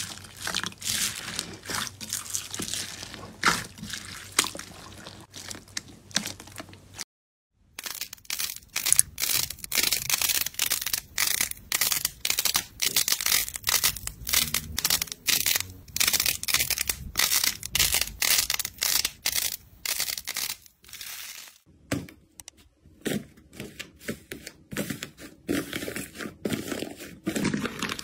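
Slime being handled, making dense runs of crackling, popping clicks and crunching, in separate clips broken by a short silent cut about seven seconds in and a change in sound near the end.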